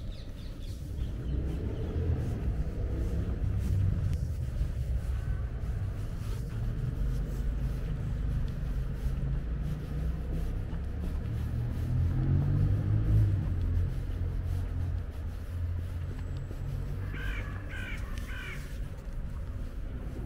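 Low rumble of distant city traffic and wind, swelling twice, with a crow cawing four times in quick succession near the end.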